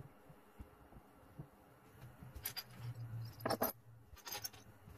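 Steel Forstner bits being set down on a wooden workbench, clinking against one another and the wood in a few short metallic rattles in the second half.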